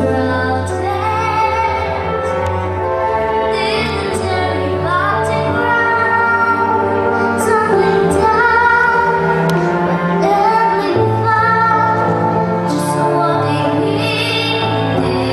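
A young female voice singing a slow melody with long held notes, over instrumental accompaniment with a steady bass.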